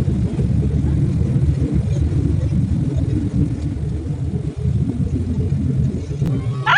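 Tour boat's engine running, a steady low rumble.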